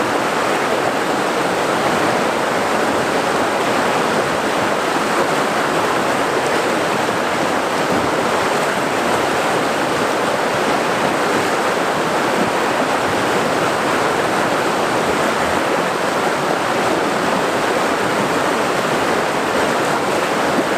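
Flowing river water, a steady, even rushing that does not let up.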